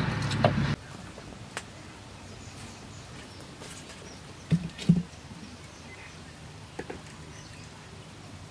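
A clay cooking pot is set down onto a clay hearth over a wood fire, giving two dull knocks about half a second apart. A few faint clicks sound against otherwise quiet surroundings.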